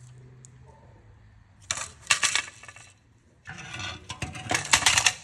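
Metal parts or tools clinking and clattering against each other in two loud bursts, the first about two seconds in and the second just past the halfway mark, over a faint steady hum.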